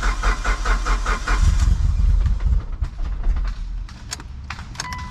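Mitsubishi Lancer Evolution engine cranking on the starter with an even rhythm of about five strokes a second, then catching and running about a second and a half in, started again to get fresh power steering fluid flowing through a newly replaced hose. A steady electronic beep starts near the end.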